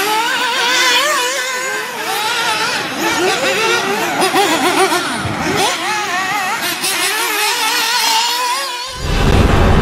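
Several nitro RC buggies' small two-stroke glow engines revving up and down over one another as they race. About nine seconds in, they give way to a deep whoosh and rumble of outro music.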